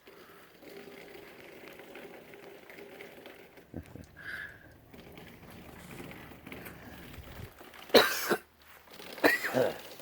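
A person coughs loudly about eight seconds in and clears the throat or coughs again about a second later, over a low steady background noise.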